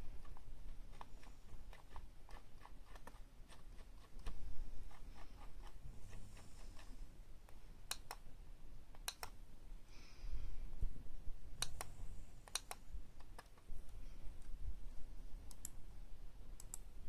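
Scattered sharp clicks and taps at irregular spacing, with a few louder double clicks about halfway through, over a faint low rumble.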